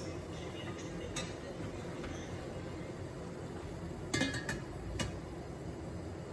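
Stainless steel steamer lid set down on the steamer pot: a quick cluster of metal clinks about four seconds in and one more clink a second later, over a steady low background noise. A light click comes about a second in.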